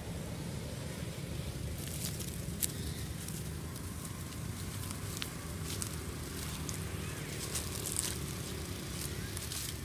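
Footsteps crunching through dry fallen leaves: an irregular scatter of sharp crackles over a steady low rumble.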